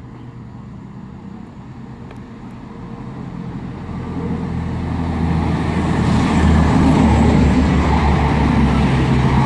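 CrossCountry Voyager diesel multiple unit passing through slowly, its underfloor diesel engines running with a low hum that grows steadily louder as it draws near and is loudest through the second half. A steady low diesel hum sits underneath.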